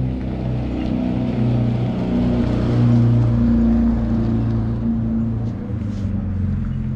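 A motor vehicle's engine running close by: a steady low hum that grows louder about three seconds in, then eases off.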